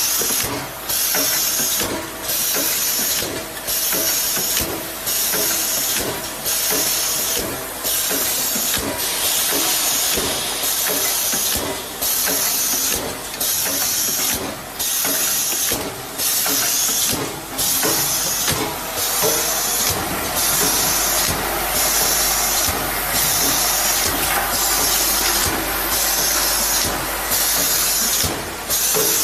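Rotary bottle-cap liner inserting machine running, its pneumatic system giving a loud hiss of air that breaks off briefly about once a second as the turntable indexes. Light mechanical clatter runs underneath.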